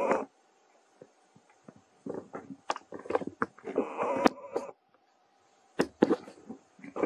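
Dry fallen leaves crackling and rustling under a baby monkey as it walks and picks through them, in short irregular bursts with quiet gaps. The densest bursts come in the middle, and a last brief cluster comes near the end.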